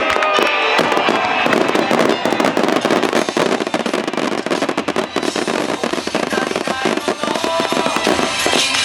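Fireworks going off in rapid, dense crackling bursts, with music from loudspeakers playing underneath.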